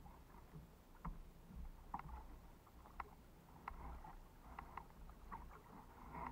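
Faint, irregular small ticks and light water splashes around a kayak afloat, roughly one a second, over a low rumble.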